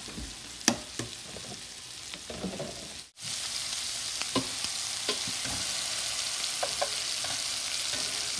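Shrimp sizzling in butter in a skillet, a steady frying hiss with a few sharp clicks, the loudest early in. The sizzle cuts out briefly about three seconds in and comes back louder.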